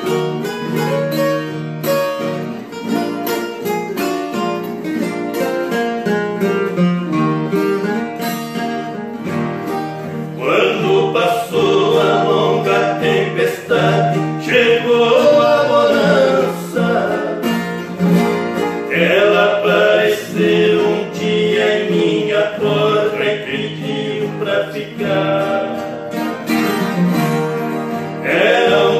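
Acoustic guitars played together in a Brazilian moda de viola, plucked and strummed in an instrumental passage. About ten seconds in, men's voices come in singing a verse together over the guitars, in phrases with short breaks.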